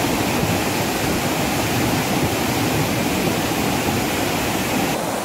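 Steady rushing of a river in flood, with fast, turbulent floodwater pouring along.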